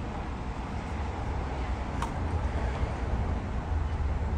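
Steady low rumble of an idling vehicle engine under a constant wash of outdoor street noise, with one faint click about two seconds in.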